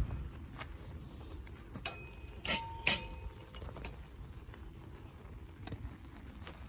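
Camp cookware and utensils clinking and knocking, a few light taps and two louder clinks about two and a half and three seconds in, the first ringing briefly like metal.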